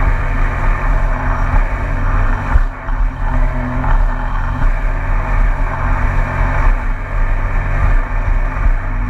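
A 2019 Yamaha EX WaveRunner's three-cylinder four-stroke engine and jet drive running steadily underway, with water rushing against the hull. The sound dips briefly about two and a half seconds in.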